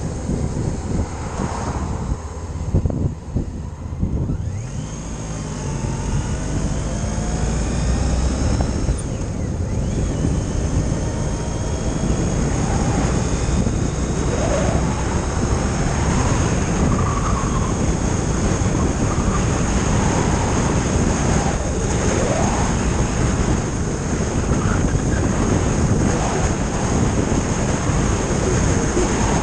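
Touring motorcycle on the move: the engine's steady drone under heavy wind rush on the mounted microphone. It dips briefly a few seconds in, then builds with a rising engine pitch as the bike speeds up, and holds at cruising speed.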